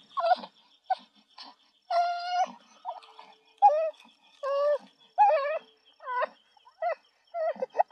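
Infant crying in a string of short wails, many falling in pitch at the end, with brief gaps between them.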